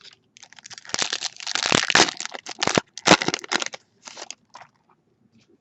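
Crinkling and crumpling of a trading-card pack's foil wrapper, a dense run of crackles for about three seconds, then a few scattered crinkles.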